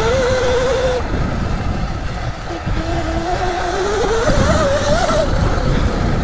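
Electric dirt bike's motor whining, its pitch rising and falling with the throttle, over a dense low rumble. The whine breaks off about a second in and comes back a little later.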